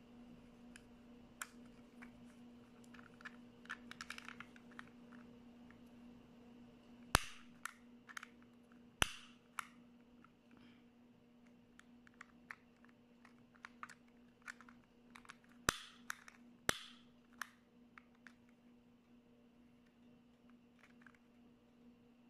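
A refillable utility gas lighter being worked in the hand: many small plastic clicks from its trigger and safety switch, and four sharp snaps of its piezo igniter, two of them followed by a short hiss. A steady low hum runs underneath.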